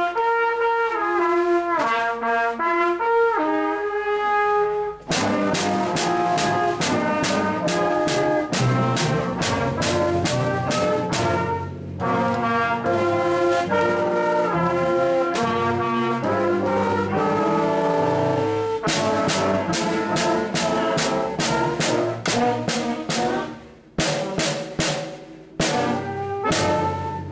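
Brass-led band music with steady held notes and frequent percussion strikes. About five seconds in, a lighter passage gives way to the fuller ensemble with a bass line. The music breaks off briefly twice near the end.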